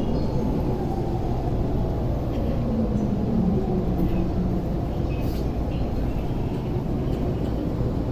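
Inside a JR E231-500 series electric train slowing into a station: steady running rumble, with a low motor whine that falls in pitch about three seconds in as the train brakes.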